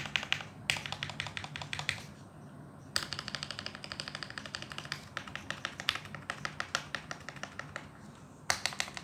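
Fast typing on a modded Tecware Phantom TKL mechanical keyboard with KTT Kang White linear switches and doubleshot ABS keycaps, foam-dampened, in rapid runs of keystrokes, about ten a second, with a short pause about two seconds in and another near the end.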